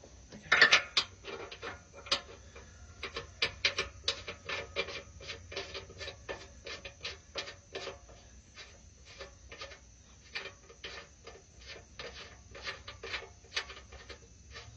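Ratchet wrench clicking in quick runs of several clicks a second while bolts are turned, with one louder metal clatter about half a second in.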